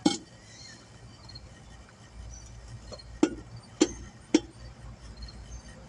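Sharp metallic clinks from parts of a portable tire balancer being handled and fitted together: one knock right at the start, then three more about half a second apart a little past three seconds in.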